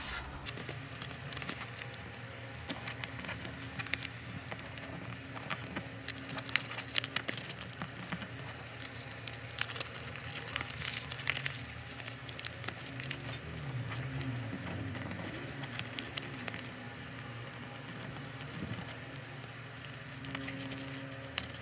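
Faint paper crinkling and rustling from folded paper boats being handled, in scattered short crackles and ticks over a low steady hum.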